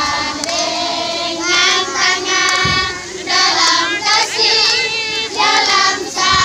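A group of children singing a song together in short phrases, with no instruments.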